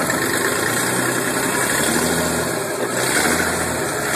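Newly built engine, rated at 366 horsepower, idling steadily on its first run.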